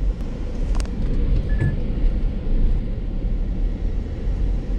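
Car driving slowly, heard from inside the cabin: a steady low rumble of engine and tyres. A single click comes just under a second in, and a brief high beep follows shortly after.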